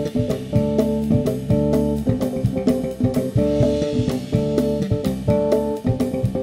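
Live band playing an instrumental passage with a steady beat: electric bass, drum kit with cymbals, congas and keyboard.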